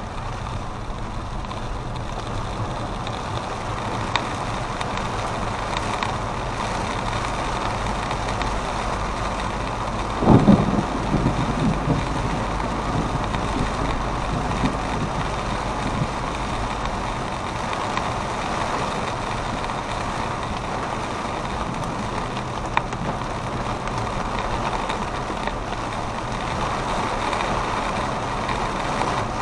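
Steady running noise of a moving road vehicle, with a brief louder thump about ten seconds in.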